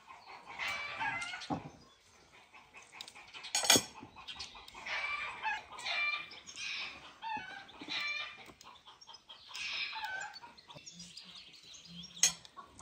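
Domestic chickens clucking in several short runs of calls, with a sharp clink about four seconds in and another near the end.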